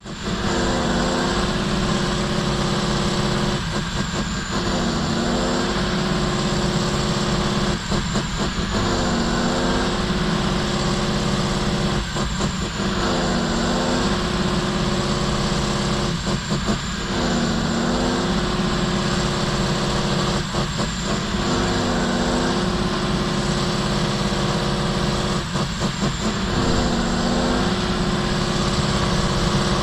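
Heavy truck's diesel engine running steadily, its pitch dipping and recovering about every four seconds.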